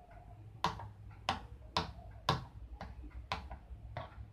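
A spoon knocking against its container while a mixture is stirred, a sharp tap about twice a second, slightly irregular.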